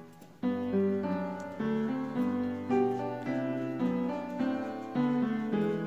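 Background instrumental music: a melody of struck notes that each ring and fade, a new note about every half second, after a brief pause at the start.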